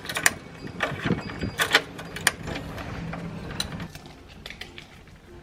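Keys jangling and a key turning in a front-door lock, a run of sharp metallic clicks and ticks in the first two seconds or so. Near the end, only a few faint clicks.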